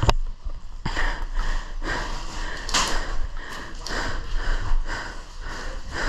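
Footsteps crunching through dry ground cover, about two steps a second, with a sharp click right at the start.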